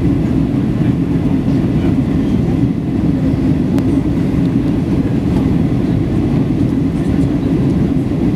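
Steady low drone inside the cabin of a Boeing 737-800 in flight: its CFM56-7B jet engines and the airflow past the fuselage, heavy in the low end.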